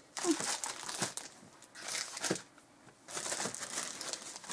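Clear cellophane wrapping crinkling as it is handled, in three stretches with short pauses between.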